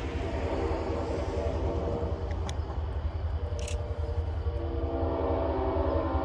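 A locomotive sounds a chord of several steady tones in two long blasts, the second starting a little past halfway, over the steady low rumble of the train. Two sharp clicks come between the blasts.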